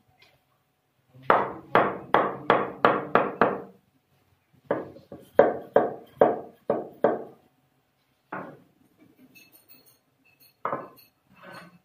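Hammer tapping a stone skirting strip to bed it into the mortar behind a kitchen counter: two quick runs of about half a dozen sharp knocks each, then a few single knocks.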